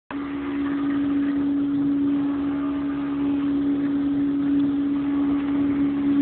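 CNC profile machine running, a steady hum with one strong even tone over a mechanical whirr, starting abruptly.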